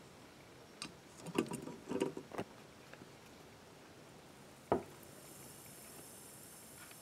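Red-hot nickel ball set down with tongs onto the aluminium top of a soda can: a quick cluster of metal clicks and knocks, then one sharp click a few seconds later, followed by a faint high hiss.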